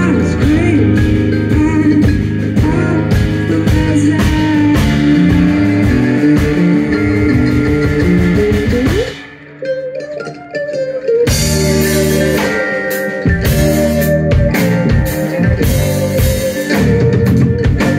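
Live rock band playing, with electric guitar, electric bass, drum kit and mandolin. About nine seconds in the band drops away for around two seconds, leaving a thinner, quieter passage, then comes back in full.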